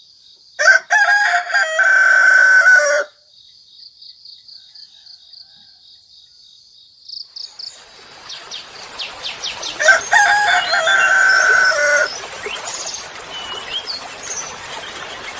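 A rooster crows twice, about nine seconds apart, each crow lasting a couple of seconds. A steady high whine runs through the first half. From about eight seconds in, quick high chirps and sliding whistles of an oriental magpie-robin's song come over a hiss.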